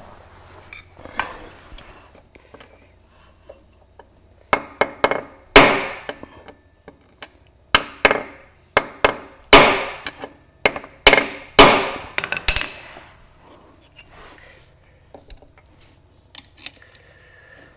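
A hammer striking the end of a screwdriver seated in a stuck vent plug on a Mercury 40 hp four-stroke outboard's gearcase: about fifteen sharp metallic hits in loose groups, each with a short ring, starting a few seconds in. The blows are meant to shock the over-tight plug loose.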